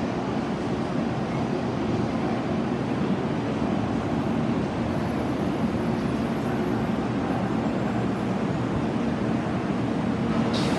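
Steady running noise of a Kyushu Shinkansen train: an even rushing sound over a low hum, with no rise or fall in level.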